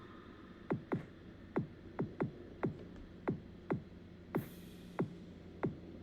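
Electronic music with a drum-machine beat: deep kick drums that each drop sharply in pitch, hitting in an uneven pattern, with a short burst of hiss about four and a half seconds in and a steady low synth note joining after it.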